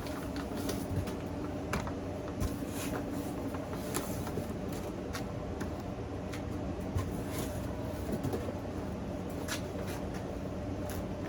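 Scattered light clicks and rustles of fireworks packaging being handled, over a steady background hum.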